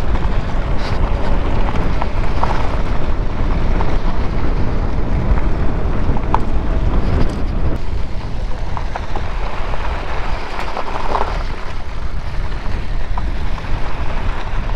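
Wind buffeting the microphone while riding an e-bike: a loud, steady, deep rushing noise.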